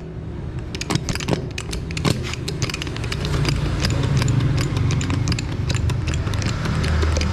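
Steel wire rope being worked in a heavy lever-type wire rope cutter: irregular metallic clicks and knocks over a steady low hum.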